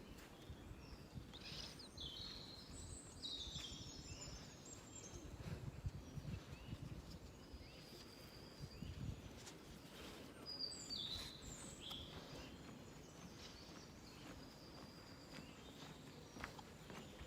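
Quiet outdoor ambience of small birds chirping, with groups of short, high calls a second or two in, near the middle and at the end, over a faint low rumble.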